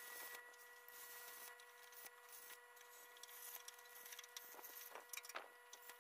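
Faint MIG welder crackling and sputtering in short irregular runs as it tacks a sheet-metal repair panel into a VW Beetle heater channel, over a steady faint whine.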